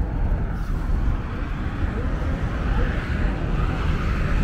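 Busy city street ambience: a steady low rumble, likely traffic, with faint voices of passers-by.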